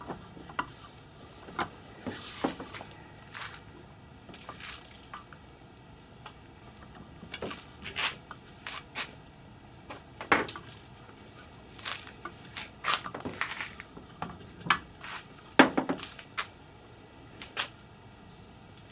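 Irregular knocks, clicks and rattles of a plastic garden hose reel and its hose being handled as the hose is wound onto the reel, with a few sharper knocks around ten and fifteen seconds in.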